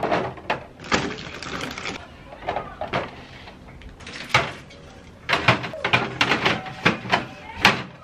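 Drink cans and plastic soda bottles knocking and clinking against each other and the plastic refrigerator shelf as they are stacked in, with a short stretch of rustling about a second in.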